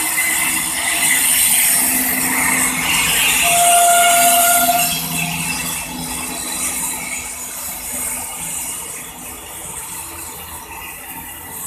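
A WAG-9 electric locomotive hauling a container freight train past at close range: the rumble and clatter of wheels on the rails and the wagons rattling. It is loudest in the first few seconds and eases as the container wagons roll by. A brief steady tone sounds about three and a half seconds in.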